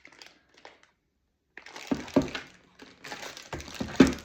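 Plastic packaging crinkling and rustling as parts of a robot vacuum are handled out of their box, with a couple of sharp knocks. The sound drops out briefly about a second in.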